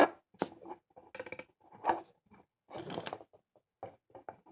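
Intermittent scratchy rustling and small clicks of hands handling things close to the microphone, in short bursts about a second apart.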